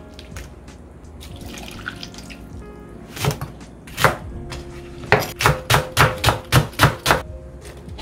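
Background music with a series of sharp knocks: two single knocks about a second apart, then a quick run of about eight, roughly three a second.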